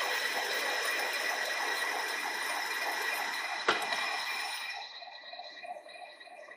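Monarch engine lathe running under power on a single-point threading pass, with a steady gear whine and fast rhythmic machine clatter. There is a sharp click about halfway through as the pass ends, after which the lathe keeps running more quietly.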